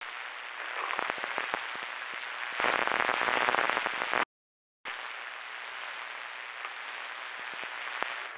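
Two-way radio receiving two keyed transmissions that carry only hiss and scattered clicks, no voice. Each starts and cuts off abruptly, with half a second of dead silence a little past four seconds in. The hiss grows louder during the last second and a half of the first transmission.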